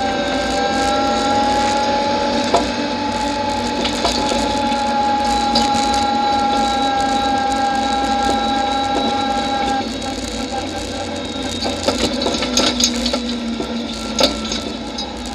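Rally car engine heard from inside the stripped cabin, held at steady revs for about ten seconds, then easing off, with a string of sharp knocks and rattles near the end.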